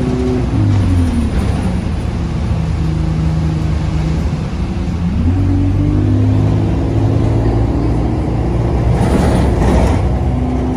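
Alexander Dennis Enviro200 single-deck bus's engine and drivetrain, heard from inside the passenger cabin while moving. The pitch drops about half a second in as the bus eases off, then rises about five seconds in as it accelerates and holds steady, with a brief rushing noise near the end.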